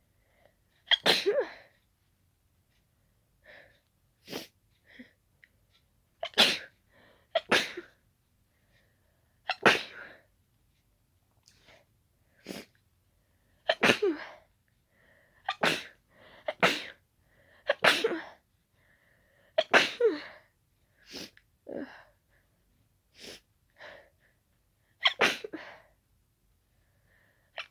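A person sneezing over and over in an allergic fit: about a dozen wet, tickly sneezes spaced a second to a few seconds apart, with shorter, fainter bursts between them. The sneezing is an allergic reaction to daisies smelled up close.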